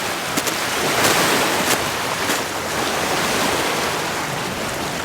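Strong wind blowing straight across the microphone: a steady loud rushing with gusts and a few sharp ticks in the first couple of seconds.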